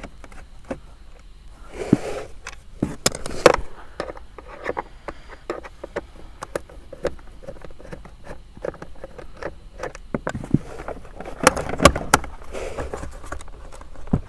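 Irregular clicks, taps and knocks of hand tools and hard plastic parts being handled as the footwell air duct's Torx screws are undone, with a few louder knocks about three and a half and twelve seconds in.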